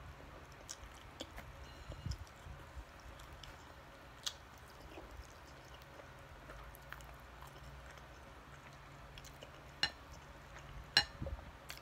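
Quiet close-up chewing of rice and siomai, with small wet mouth clicks. A few sharper clicks come near the end, as a utensil knocks against a dish.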